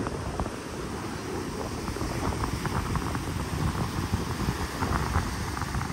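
Wind buffeting the microphone over a steady wash of surf, with scattered faint ticks.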